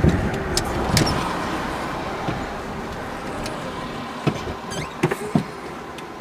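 Car running on the road: a steady vehicle noise that slowly fades, with a few sharp clicks about a second in and again near the end.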